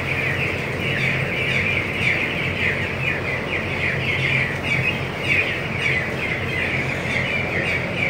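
A shed full of ten-day-old broiler chicks peeping all at once: a dense chorus of many overlapping short, falling chirps. Under it runs a steady low hum.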